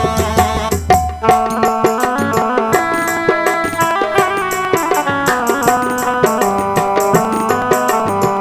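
Instrumental interlude of Indian devotional folk music: a melodic instrument plays a stepwise tune of held notes over quick tabla drumming with sharp percussive strokes.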